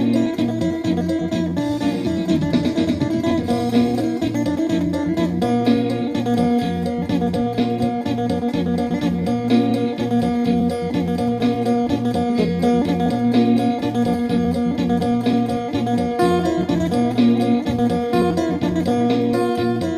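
Three-string phin (northeastern Thai lute) played solo: a fast, lively melody of plucked notes over steady sustained drone tones.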